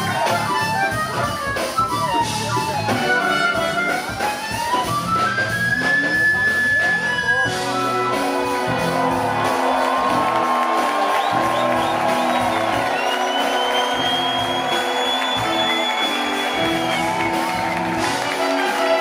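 Live jazz-fusion band playing, led by a harmonica whose melody slides and bends up and down. About seven seconds in, the band changes to long held notes under the lead.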